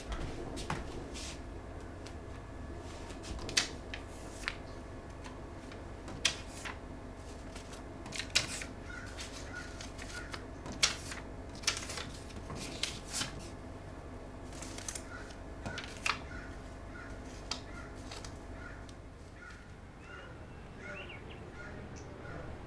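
Irregular sharp clicks and taps over a steady low hum. From about halfway in, faint short high chirps repeat about every half-second.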